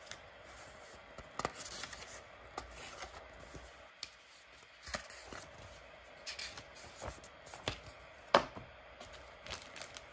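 Folded paper manual being unfolded and handled: scattered paper rustles and crisp snaps, with one louder sharp tap a little over eight seconds in.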